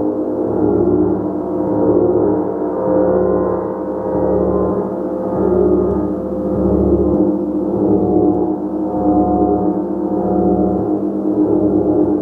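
A gong played continuously with soft, regular mallet strokes, sustaining a dense wash of ringing overtones that swells and ebbs about once every second and a half.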